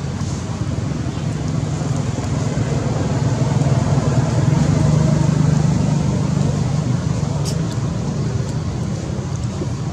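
Steady low rumble of motor traffic, swelling slightly midway, with a few faint ticks near the end.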